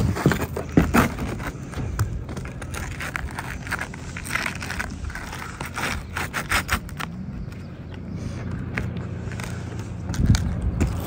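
T-lock asphalt shingles being handled and slid into place on the roof deck: irregular gritty scrapes, rustles and light clicks, loudest in the first second, over a low steady hum.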